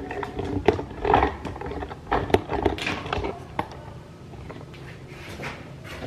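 Handling noise: rustling with several sharp knocks and clicks, settling to quiet room tone after about three and a half seconds.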